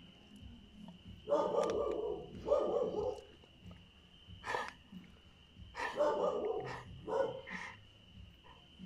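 Dog barking in several short bouts with pauses between them, over a steady high-pitched tone in the background.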